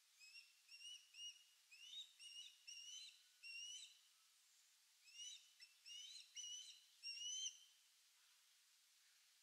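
Faint calls of a pair of ospreys sharing a fish: two quick runs of short, rising, whistled chirps, the second starting about a second after the first ends.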